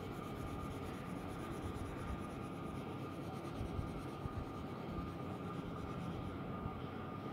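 Colored pencil scratching back and forth on paper in quick shading strokes, coloring in a drawing. The strokes stop about six seconds in.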